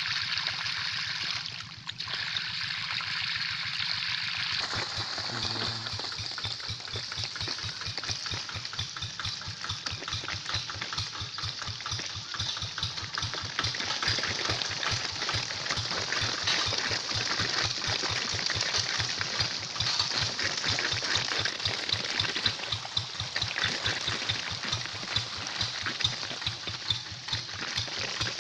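Single-cylinder Kubota diesel engine of a hand tractor running steadily, a fast even beat of firing strokes that comes in strongly about four seconds in over a background hiss.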